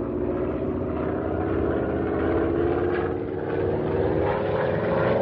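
Propeller airplane engine droning steadily as the plane dives low to buzz a wolf pack, rising a little in pitch near the end.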